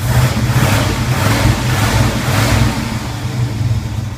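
1981 Pontiac Turbo Trans Am's turbocharged 301 V8 running rough on a cold start, with its air management valve unplugged and no squeal to be heard. It is louder for about the first three seconds, then eases a little.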